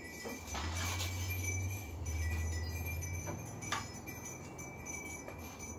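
Small metal fan hardware clinking in the hands, a few light separate clicks, over a low steady hum.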